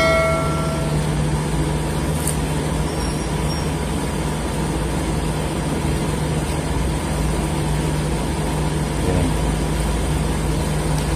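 A steady low mechanical hum and rumble. A short ringing chime fades out in the first second.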